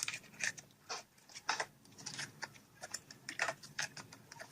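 Slime being squished and pressed, a quick irregular run of sticky clicks and small pops, played back from a slime video.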